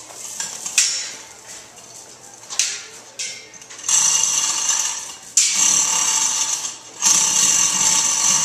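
Overhead chain hoist lifting a boat of over a ton, with a few short jogs in the first seconds, then running in longer spells from about four seconds in. It gives a steady mechanical running noise that starts and stops abruptly, with brief breaks about five and seven seconds in.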